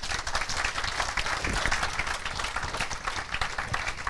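Audience applauding, many people clapping at once, thinning slightly toward the end.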